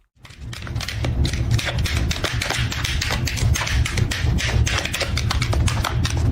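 Rapid, irregular clicking and tapping over a low rumble, starting just after a sudden cut.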